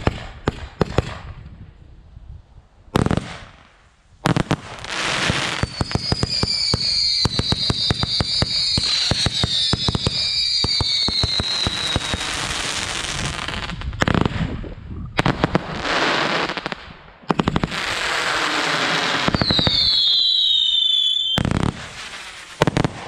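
Standard Fireworks Immortal 125-shot barrage cake firing: rapid volleys of launch shots and dense crackling, with brief lulls. High whistling tones glide across the middle of the barrage, and one falls in pitch near the end.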